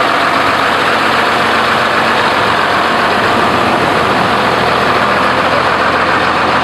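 Truck engine idling steadily, a constant low drone with no revving.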